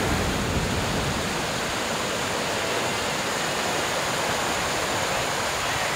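Big whitewater rapid rushing steadily, river water crashing over and around boulders as an even, unbroken hiss.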